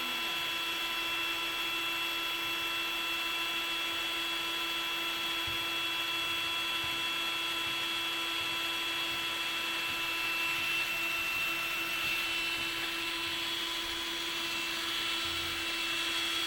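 Electric power drill running steadily, its bit boring into a hollow porch column, with a constant high whine.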